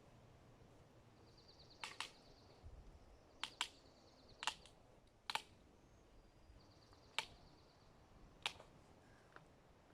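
Faint outdoor bird calls: a handful of sharp, brief chirps, some in quick pairs, and a high, rapid trill that comes and goes in short bouts.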